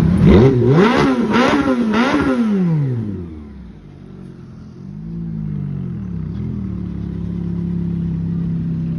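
Ferrari engine revved in four quick blips, the pitch climbing and dropping each time, then falling away. A smaller blip follows about five seconds in, and the engine settles back to a steady idle.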